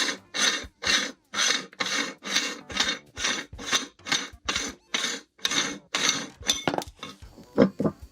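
Meat grinder grinding french fries, a rasping scrape about twice a second, stopping about six and a half seconds in. A few short metallic clinks follow near the end.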